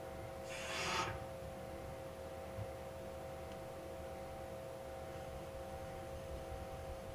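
A short splash of water poured onto a whetstone, lasting about half a second near the start, over a steady hum.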